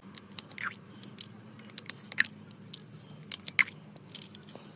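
Plastic wheel bolt caps being pulled off with a cap-removal tool: a run of irregular sharp clicks and snaps of plastic.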